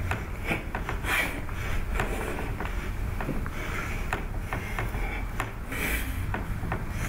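Steady low room hum with scattered light clicks and rustles, and a couple of short hissy rushes.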